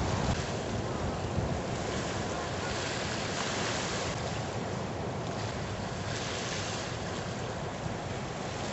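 Ocean surf breaking over the reef: a steady rush of whitewater, with wind on the microphone.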